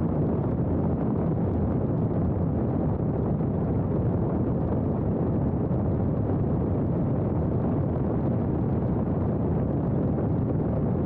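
Steady wind rush over a camera microphone mounted on the outside of a moving 2002 Subaru Forester, mixed with the low rumble of its tyres rolling on a gravel road.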